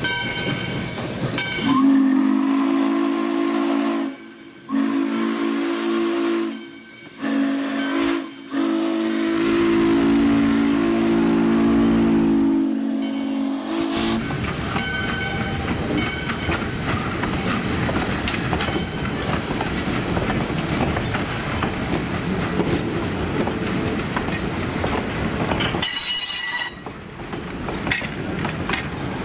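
A steam locomotive's three-chime whistle, a T&P-style chime, blows four blasts of one steady chord: long, long, short, then a long blast held about five seconds. This is the standard long-long-short-long crossing signal. The passenger coaches then roll past with a steady clatter of wheels on the rails.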